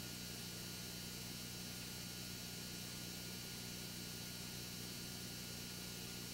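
Steady electrical hum with a constant hiss underneath, unchanging throughout: the noise floor of a remote cam's audio feed, with no bird calls heard.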